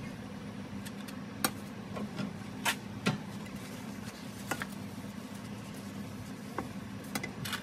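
Several sharp taps and clicks of a glass measuring jug being moved and set down on a kitchen countertop while spilled egg is wiped up with a paper kitchen towel, over a steady low hum.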